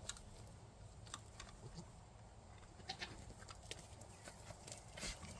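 Faint goat sounds and scattered light clicks and knocks as a goat is held after an oral dose.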